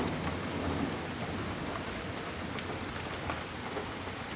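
Steady rain pouring down, an even hiss of falling drops.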